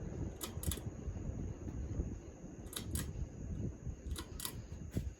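1996 Minka Aire Old Towne ceiling fan coasting down after being switched off, a low steady rumble of motor and air with a scattered handful of light clicks.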